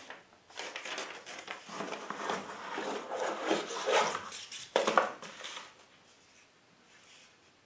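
Hands handling a boxed rifle stock and its packaging: irregular rubbing and rustling, with a sharp knock just before five seconds in, then quiet.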